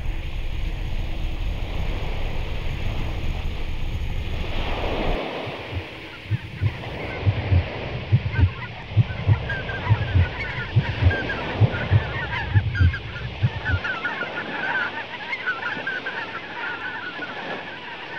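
Steady rush of surf and wind, which cuts out about five seconds in. It gives way to irregular low thumps and a flurry of many short bird-like calls that run on to the end.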